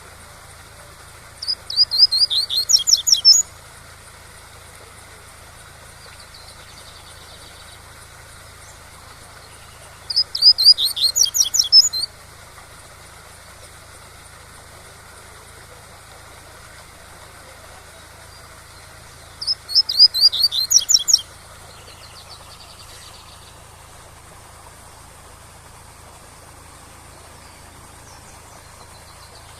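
Double-collared seedeater (coleiro) singing its 'tui-tui' song: three phrases of about two seconds, each a quick run of high sweeping notes, roughly nine seconds apart. A steady waterfall hiss runs under them.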